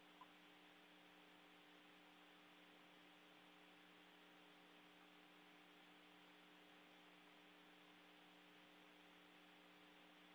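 Near silence: a faint steady hum with a light hiss, and one tiny tick just after the start.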